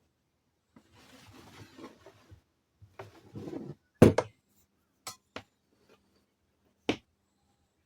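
Hard objects being handled: a soft rustle, then a clunk and a handful of sharp knocks, the loudest about four seconds in.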